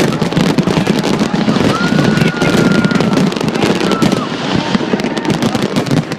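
Fireworks display going off in rapid, continuous crackling bursts, with a held whistle-like tone about two seconds in.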